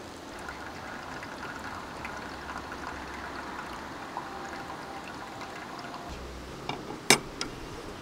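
Running water, a steady rush, with a few sharp clicks near the end, the loudest about seven seconds in.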